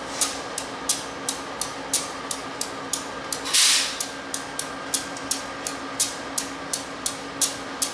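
Passenger train pulling out of the station: a steady hum with a sharp, even clicking about three times a second, and a loud burst of hissing air about three and a half seconds in.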